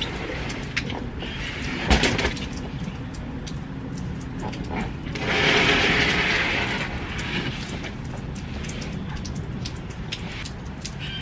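Steady light rain with scattered ticks of drops, while potato containers are handled and shifted on a patio: a sharp knock about two seconds in, and a longer rough scraping noise for a second or two around the middle.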